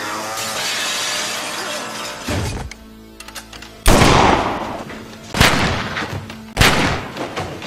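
Three loud gunshot sound effects from the iGun Pro app, each ringing off, about a second and a half apart, the first the loudest, after a duller thud about two seconds in. Film music plays underneath.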